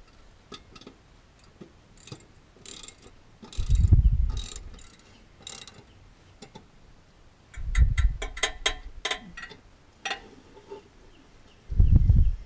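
Socket ratchet wrench clicking in quick runs as a mower blade bolt is turned under a garden tractor's cutting deck, with three low, dull bumps about four seconds apart.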